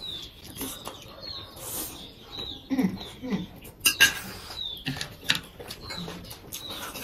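Mukbang eating sounds: chewing, sharp clicks of chopsticks and forks against plates, and a loud slurp of noodles about four seconds in. Throughout, a small bird chirps over and over in short, high notes that fall in pitch.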